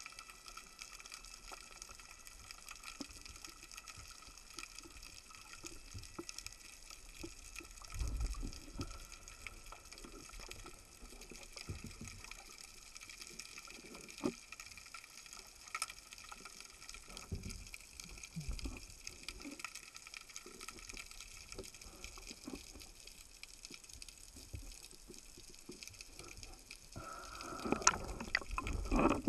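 Faint water sound from a dive camera in the sea, with scattered light clicks and soft knocks. Louder rushing water comes in near the end.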